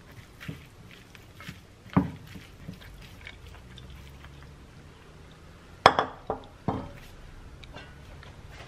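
Silicone spatula stirring a shredded chicken salad in a glass bowl, with soft scrapes and light knocks against the glass and one sharper knock about two seconds in. A few louder clunks of the glass bowl come around six seconds in as it is moved across the countertop.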